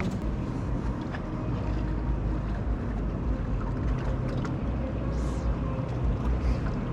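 Steady wind rumble on the microphone out on open water, with a faint steady hum underneath and a few light clicks.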